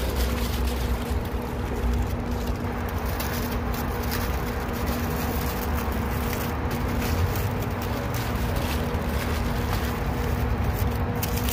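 A steady machine hum holding one low pitch, over a constant low rumble and noisy hiss, with a few faint clicks.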